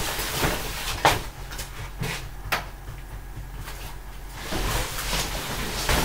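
Handling noise from a camera being moved about by hand: a few sharp knocks and clicks in the first few seconds, then louder rustling from about two-thirds of the way in.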